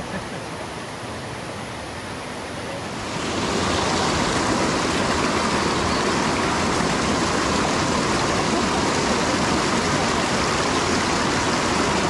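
Mountain stream water rushing steadily over rocks, growing louder about three seconds in and then holding steady.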